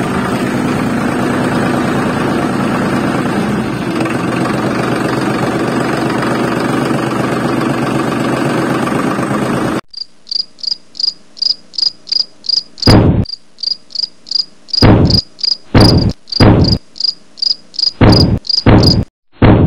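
A loud steady noise for about ten seconds, then after a sudden cut an insect, likely a cricket, chirping in a high, even pulse about three times a second. Sharp wooden knocks come among the chirps as cut green sticks are handled and set down.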